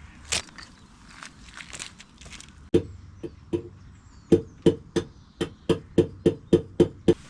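A run of sharp knocks or strikes, about three a second, each with a short hollow ring, after a single click near the start.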